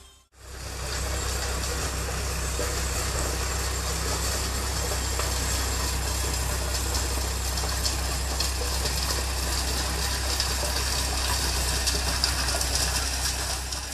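Tractor engine running steadily at constant speed, a continuous low hum with no change in pitch, starting abruptly just after the start.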